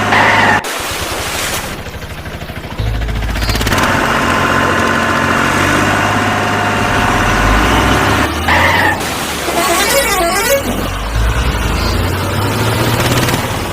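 Vehicle engines running with horn honking, in short clips cut together with abrupt changes in sound.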